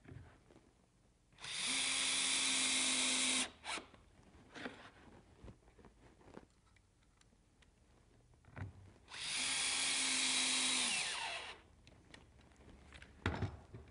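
Cordless drill/driver driving screws through a plastic push-pad handle into an MDF base, in two runs of about two seconds each. The second run drops in pitch as it winds down at the end. Light clicks and knocks fall between the runs.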